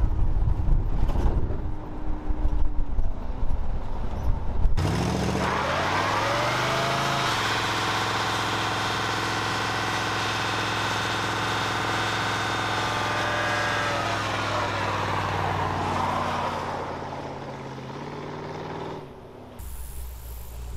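Old Ford one-ton truck driving, heard from inside the cab as a steady low rumble. About five seconds in, the engine revs up hard, holds high for several seconds with the rear tyres spinning in a smoky burnout, then falls back and idles lower near the end.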